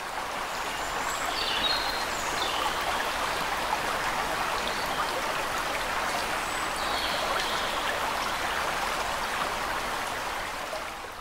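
Steady rush of running water with a few faint high chirps over it, fading out near the end.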